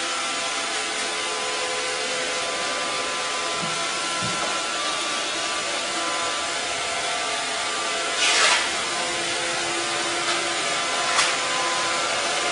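Robot vacuum cleaner running steadily: a whirring motor and brush noise with a few faint steady whine tones. A brief louder rush about eight seconds in and a short click near eleven seconds.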